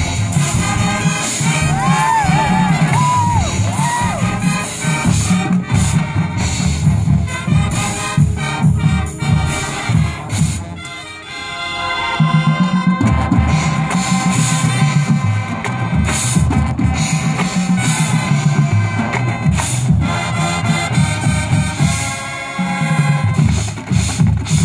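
Marching band playing loudly: brass over drums and pit percussion. About eleven seconds in the sound drops briefly, then the full band comes back in.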